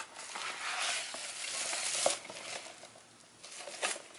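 Cardboard and wrapping rustling and sliding as a small gift box is opened and its contents pulled out, busiest over the first two seconds, with a light knock near the end.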